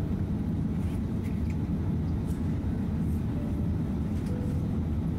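Steady low rumble inside the cabin of an Airbus A380 airliner in flight on approach to land.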